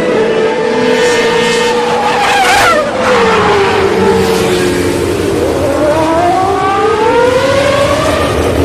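Racing car engine sound effect. The engine holds a steady note, its pitch drops sharply about three seconds in, then climbs slowly again as it speeds up.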